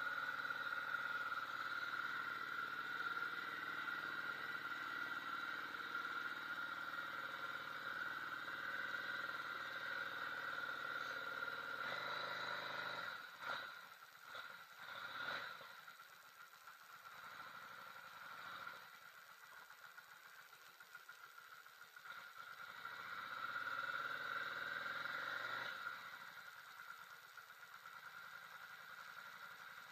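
Yamaha V Star 650 V-twin motorcycle engine idling steadily. A few knocks and clatters come about thirteen to fifteen seconds in, after which the engine sound is quieter, swelling again briefly near the end.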